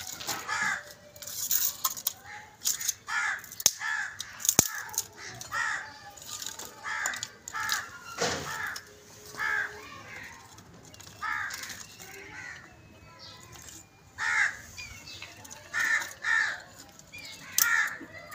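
Crows cawing over and over, in short calls about once a second with a pause a little after the middle. A couple of sharp snaps about four seconds in.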